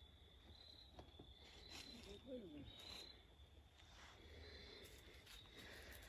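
Near silence: quiet woodland ambience with a faint steady high tone that swells about once a second, a few soft clicks or rustles, and a brief faint voice about two seconds in.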